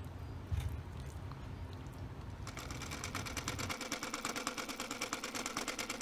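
A single thump about half a second in. About two and a half seconds in, a fast, even mechanical rattle, like a small motor running, starts and keeps going.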